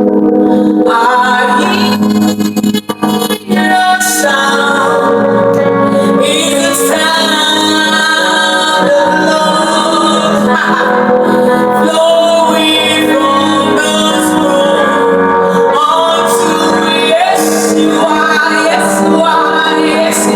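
Worship song: a woman singing over sustained instrumental chords, the music dipping briefly about three seconds in.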